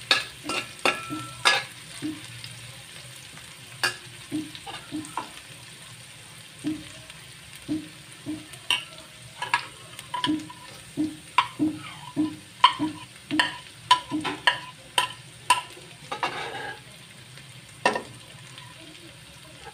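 Chopped onions sizzling in oil in a stainless steel wok, with a metal spatula repeatedly scraping and knocking against the wok and a plate as minced garlic is pushed off into the pan. The knocks come thickest in the middle stretch.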